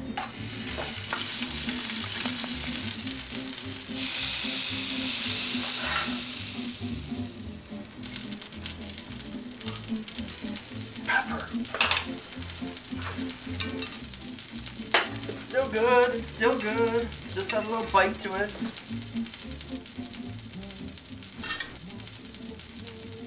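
Food frying in a pan, a steady loud sizzle for the first eight seconds that then settles lower. A utensil stirs and knocks against the pan with scattered sharp clicks. About halfway through, a brief wavering high-pitched sound comes in.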